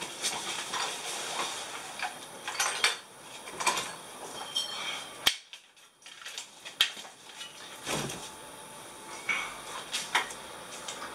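Metallic clicks and clacks with rustling as guns are handled and pulled from soft padded gun cases: a shotgun and rifles knocking and clinking. About halfway through the sound drops to near quiet for a second or so.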